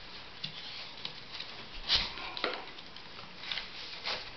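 A tabla's lacing strap being pulled by hand and woven through itself around the drum: scattered rubbing and scraping of strap on strap and shell, with a sharp knock about two seconds in and a lighter one just after.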